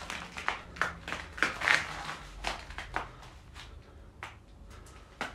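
Irregular crunching and crackling of loose debris, a quick run of sharp clicks and crackles that thins out after about three seconds.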